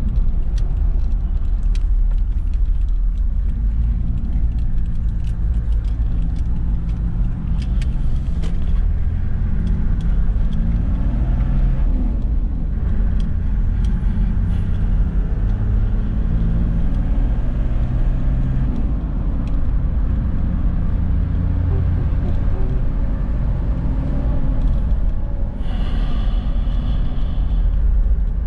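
Toyota Land Cruiser LX engine and road noise heard inside the cab while driving at speed: a steady low rumble with engine tones that shift in pitch. A brief hiss of about two seconds comes near the end.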